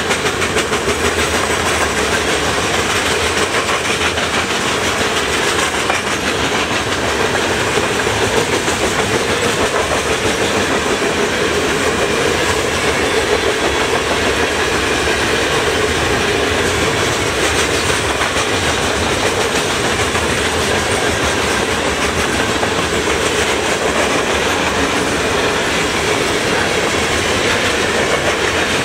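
Covered hopper cars of a freight grain train rolling past at speed: a steady, loud rumble of steel wheels on rail with a rapid clickety-clack of wheels over rail joints.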